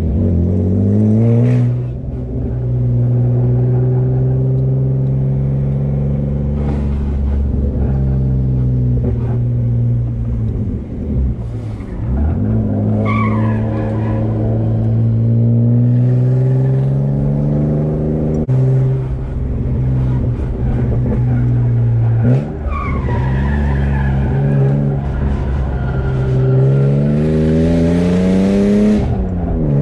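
BMW E36 engine pulling hard through the gears, the pitch climbing in long pulls and dropping sharply at each shift or lift. Short high tyre squeals come about halfway through and again about two-thirds in.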